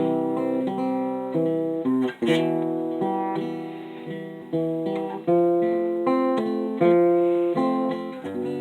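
Acoustic guitar playing an instrumental break in a song with no singing: chords struck about once a second, each ringing out and fading.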